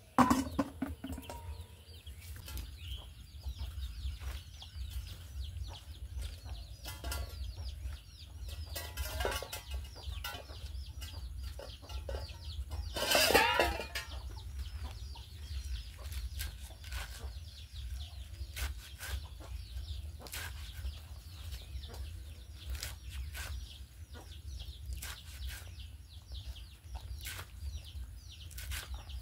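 Chickens clucking in the yard, with one loud squawk about halfway through, over short snipping sounds of leaves being sliced on an upright blade. A knock at the very start.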